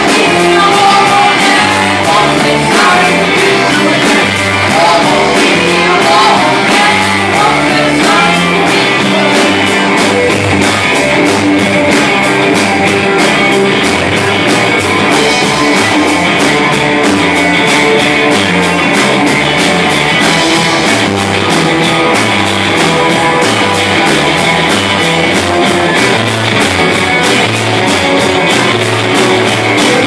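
Live rock band playing: electric guitars, bass and drum kit, with singing.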